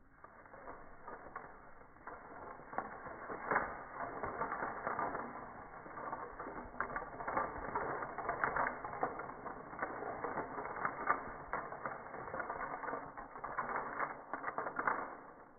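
A woven popsicle-stick chain reaction (stick bomb) unravelling: wooden craft sticks spring free and clatter onto carpet in a rapid, continuous run of clicks that stops abruptly near the end.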